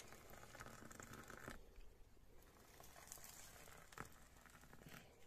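Faint trickle of just-boiled water poured from a camping kettle into small metal cups of oat flakes.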